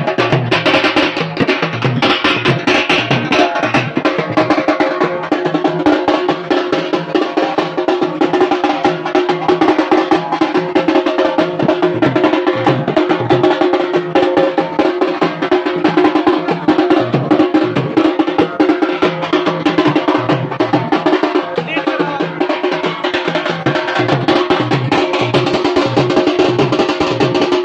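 Loud drumming: drums beaten with sticks in a fast, steady rhythm, with a steady droning tone underneath.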